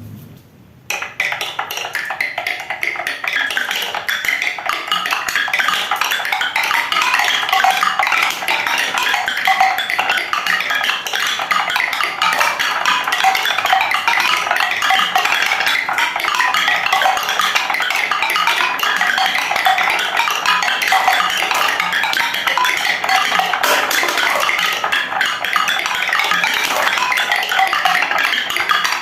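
Many marbles rolling and clattering down wooden ramp tracks, a dense, continuous rattle of small clicks that starts abruptly about a second in.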